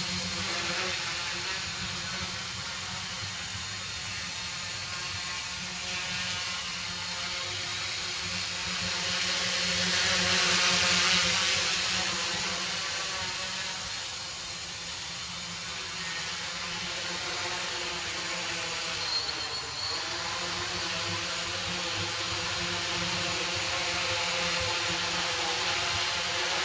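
Small electric tricopter's motors and propellers buzzing steadily while it hovers low, their pitch wavering slightly with throttle corrections. It gets louder for a couple of seconds about ten seconds in.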